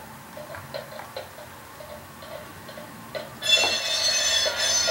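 Model train sound-decoder audio played through small onboard speakers: light clickety-clack of wheels over rail joints, then a loud, steady locomotive horn blast about three and a half seconds in as the train nears the grade crossing.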